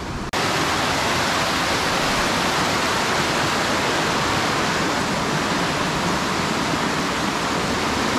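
Mountain stream rushing white over rock cascades, a steady, loud, even rush of water that begins abruptly just after the start.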